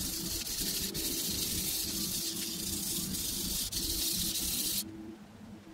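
Single-bevel kitchen knife being ground on a wet 1000-grit whetstone: a steady, high-pitched hiss that cuts off abruptly near the end.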